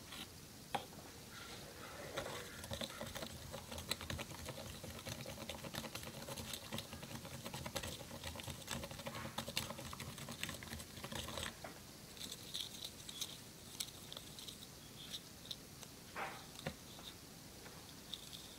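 Wooden craft stick stirring and scraping a glue putty mixture in a small plastic cup: fast, dense clicking and tapping for about ten seconds, then slower scattered taps.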